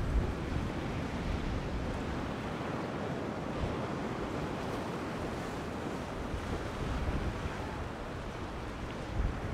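Ocean surf breaking and rushing in a steady wash, with wind buffeting the microphone in low gusts, strongest near the end.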